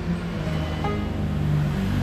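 Background music with sustained low notes.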